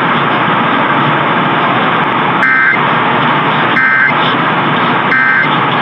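Steady AM radio static hiss. About two and a half seconds in come three short two-tone digital data bursts, roughly a second and a half apart: the Emergency Alert System end-of-message code that closes the monthly test.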